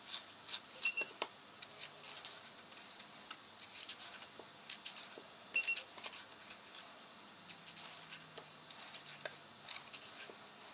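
Kitchen knife scraping and paring the skin off a raw parsnip in quick, irregular strokes.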